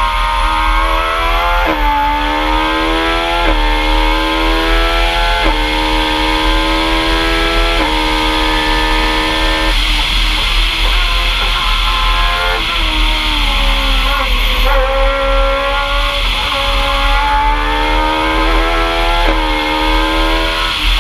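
Talex M2+ racing prototype's engine at full throttle, its pitch climbing and then falling sharply at each of four quick upshifts in the first eight seconds. About ten seconds in it eases off and drops pitch in steps, as on downshifts for a bend, then climbs hard again with another upshift near the end. Wind rushes over the onboard microphone throughout.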